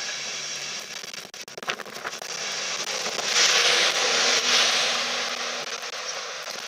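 Electric InterCity 225 train pulling out on Mk4 coaches, its Class 91 locomotive passing close at the rear. There is a loud rushing hiss, loudest from about three to five seconds in, and scattered crackling clicks from the wheels and track.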